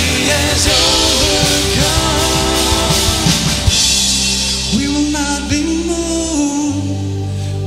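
Live worship band playing a rock-style song on drums, bass and guitars, with vocalists singing.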